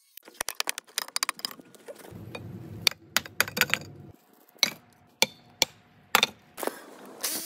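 Hollow concrete blocks clinking and knocking against one another as they are handled, a string of sharp separate strikes, the loudest about three and six seconds in, with a low rumble between about two and four seconds.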